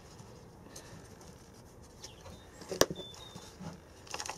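Hands working compost into a small plastic plant pot, with faint rustling and a single sharp tap about three seconds in, as the pot is handled and set upright.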